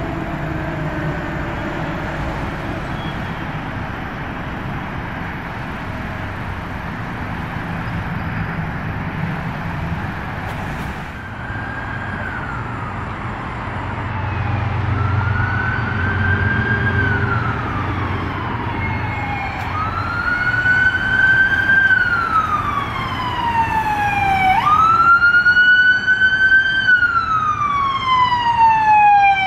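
Emergency vehicle siren wailing, rising and falling in pitch about every four seconds and growing louder as it approaches; one rise near the end jumps up abruptly. In the first half a fire truck's engine rumbles low under a fainter, falling siren.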